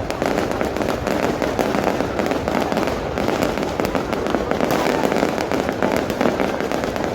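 New Year aerial fireworks going off in a dense, continuous barrage of overlapping bangs and crackles, with no pause.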